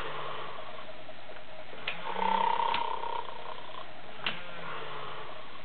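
Playskool KOTA the Triceratops ride-on toy playing its recorded snoring sound through its speaker, the sleep mode it falls into after about two minutes without being touched. Slow snoring breaths, the loudest lasting about a second a couple of seconds in, with a few soft clicks between breaths.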